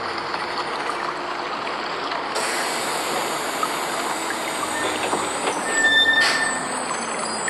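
Bus traffic on a rain-soaked street: a steady hiss of tyres and rain on the wet road, with a short high-pitched brake squeal about six seconds in.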